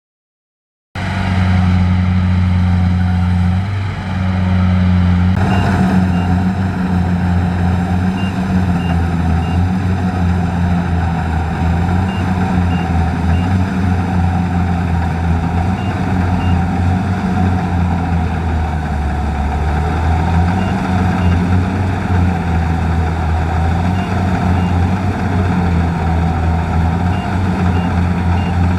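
Kubota DC-70 combine harvester's diesel engine running steadily under load with a deep, even hum, starting abruptly about a second in. Faint short high beeps, two or three at a time, recur every few seconds.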